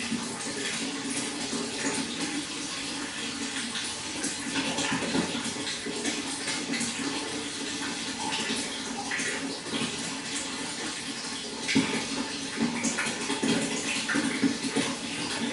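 Running water pouring and splashing steadily into a fish pond, with many small irregular splashes.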